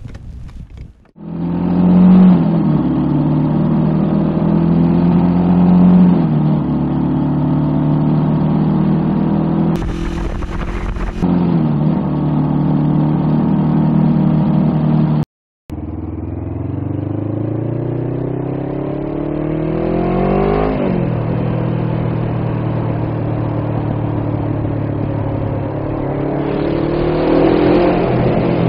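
Suzuki GS450's air-cooled parallel-twin engine and exhaust while riding, recorded close up with little wind noise. The pitch rises steeply under acceleration and drops at gear changes, with a brief rush of noise about ten seconds in and a half-second dropout just past halfway.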